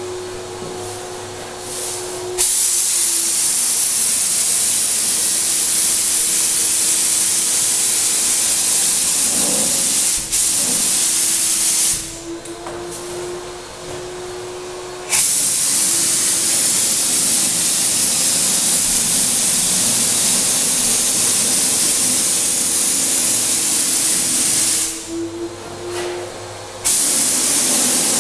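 Graco HVLP 9.5 turbine spray gun atomising paint: a loud, steady hiss of air and paint while the trigger is held, starting a couple of seconds in and let off twice for two or three seconds. Under it the turbine keeps up a steady whine throughout.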